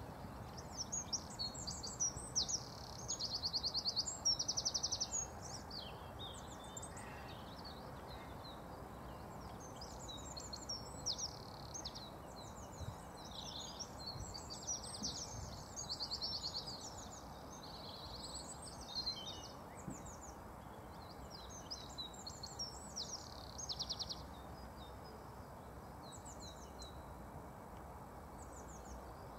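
Songbirds singing: phrases of high chirps and fast trills that come and go, loudest a few seconds in and sparser near the end, over a steady low outdoor background noise.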